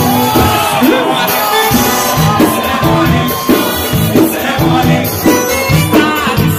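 Live band playing upbeat Latin-style music with a male singer. A rush of hiss from the stage CO2 jets blasts through the first second or so.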